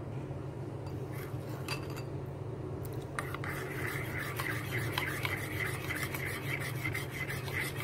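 Spoon stirring a melted chocolate-and-cream mixture in a ceramic bowl, scraping rapidly against the bowl from about three seconds in, over a steady low hum.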